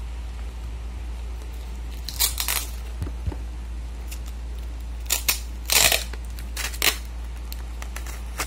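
Scissors snipping and paper rustling in a few short bursts while a paper craft is cut, over a steady low hum.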